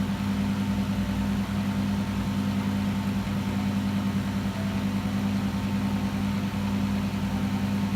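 Microwave oven running with a steady low hum, heating normally again after its repair.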